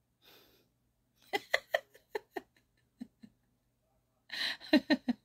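A woman chuckling: a short breath, then a run of quick soft laughs, a pause, and a second burst of laughter near the end.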